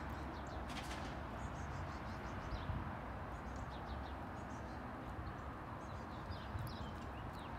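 Small songbirds chirping in the background, many short high chirps scattered throughout over steady background noise, with a faint knock about a second in.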